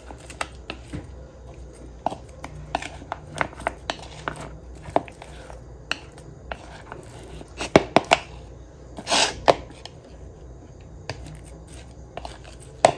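Wooden chopsticks tapping and clicking against a bowl while raw chicken pieces are stirred and tossed in marinade, with irregular light clicks throughout and a louder scraping clatter about nine seconds in.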